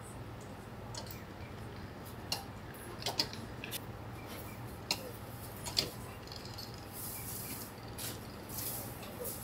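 Sharp metal clicks and taps of a hand-operated stainless-steel batter depositor as it is worked along its rails, portioning dorayaki batter onto the griddle, over a steady low hum. Several clicks are irregularly spaced, two of them close together about three seconds in. Brief hissing comes in near the end.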